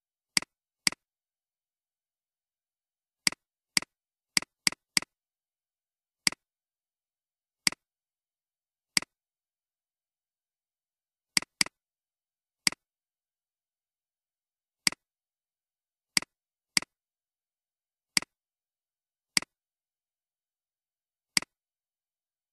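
Computer mouse clicking: about nineteen short, sharp clicks at uneven intervals, some in quick pairs, with dead silence between them.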